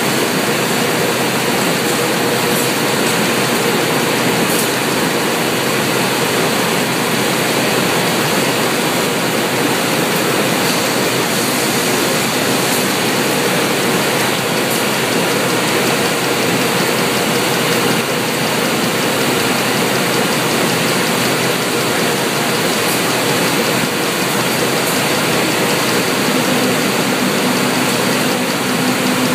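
Steady machinery noise from a robotic box-stacking cell, where powered roller conveyors and a robot arm move stacks of flattened cardboard boxes, with a steady hum and occasional faint clicks.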